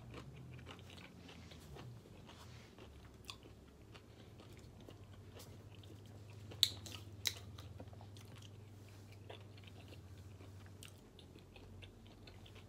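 Close-miked chewing of a bite of shrimp bacon cheeseburger, soft and faint, with small wet clicks of the mouth. About halfway through come two sharp plastic clicks, less than a second apart, as the cap of a plastic water bottle is twisted.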